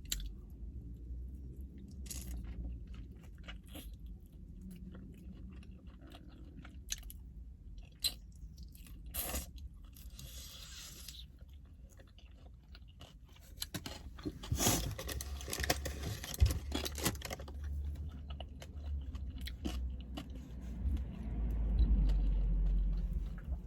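Close-miked chewing and crunching of food, with scattered bites and mouth clicks that get busier about halfway through. A low rumble comes in near the end.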